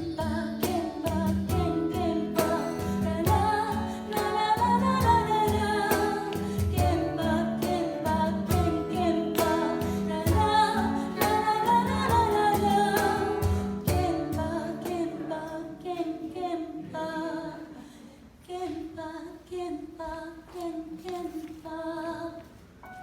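A live band playing a pop song with a female lead vocal over a steady drum and bass beat. About two-thirds of the way through the band drops out, leaving quieter spaced piano chords.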